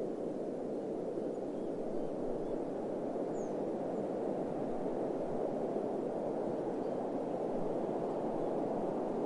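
Steady, even rushing noise, low and muffled, from a desert ambience soundscape, with no changes or distinct events.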